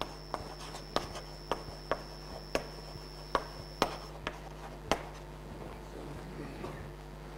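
Chalk writing on a blackboard: about a dozen sharp taps and short scrapes as letters are written, stopping about five seconds in, leaving a steady low hum.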